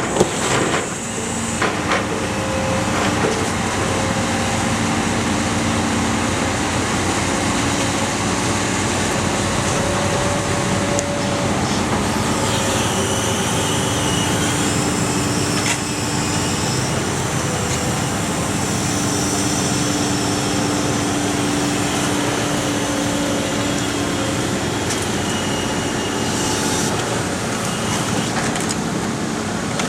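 Iron Ax Iron Pack car baler running, a steady mechanical drone with whining tones that shift in pitch now and then, and a few sharp knocks about a second in.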